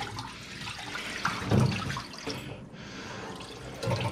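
Cloudy rinse water being poured off a pot of washed sushi rice, a steady pour and splash, with a knock about a second and a half in.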